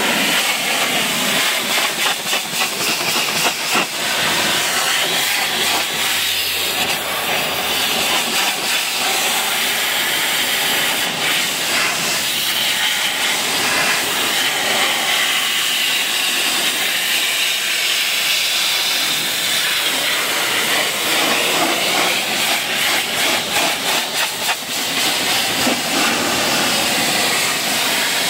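High-pressure water jet from a pressure-washer lance hissing steadily as it sprays a car's hood and windshield, the hiss wavering as the jet sweeps across the panels and glass.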